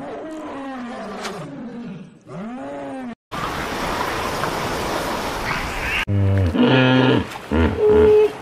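Animal calls in three segments, split by sudden cuts. First a lion's low moaning calls, then about three seconds of splashing water, then hippos grunting in loud, short, deep pulses.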